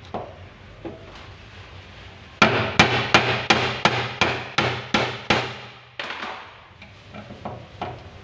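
Hammer blows on a punch or screwdriver set against the fuel tank's sender lock ring, driving the ring round: nine sharp strikes at about three a second, then a few lighter taps.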